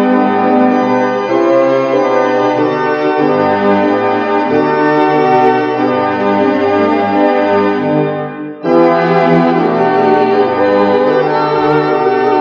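Electronic keyboard playing a hymn introduction on an organ voice, in sustained chords. After a brief break about eight and a half seconds in, a woman and a man begin singing the hymn over the keyboard accompaniment.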